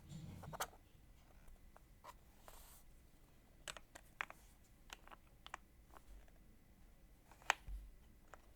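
Faint, scattered plastic clicks and taps from a mechanical keyboard being handled, not a run of typing. The sharpest click comes near the end.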